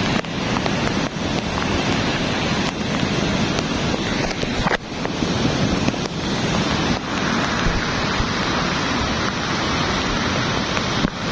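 Lahar from Mount Semeru, a volcanic mudflow of water, sand and debris, rushing down the river channel as a dense, steady noise of churning water, with brief dips in loudness about five and eleven seconds in.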